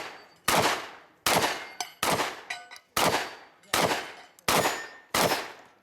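Semi-automatic shotgun fired in a rapid string: seven shots at an even pace, about three-quarters of a second apart.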